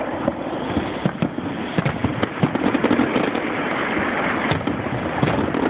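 Aerial fireworks finale: many shells bursting in quick succession, a dense run of bangs and crackling, heaviest about two to three seconds in.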